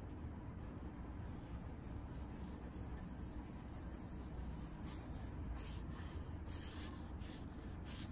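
Foam brush spreading liquid finish over a walnut and epoxy-resin surface: a series of soft brushing strokes, more frequent in the second half, over a steady low hum.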